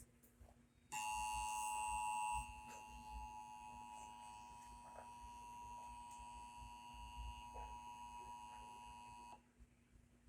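Emergency Alert System attention signal: a steady electronic alarm tone of several pitches close together, the alert tone that announces an incoming emergency message. It starts about a second in, is louder for its first second and a half, then holds at a lower level until it cuts off about nine seconds in.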